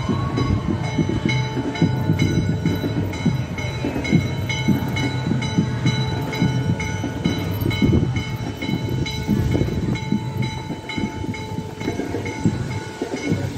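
Steam locomotive WMSR 1309, a 2-6-6-2 articulated Mallet, chuffing hard as it pulls away with a train, its exhaust beats coming quick and uneven. A grade-crossing bell rings over it, about twice a second.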